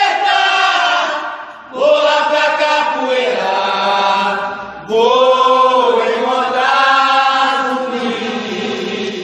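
A group of voices chanting in long held notes, in three sung phrases with short breaths between them.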